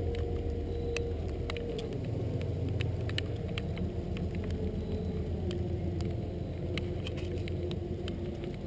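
Steady low drone of a distant engine, with a faint tone in it that drops in pitch partway through, and scattered light clicks.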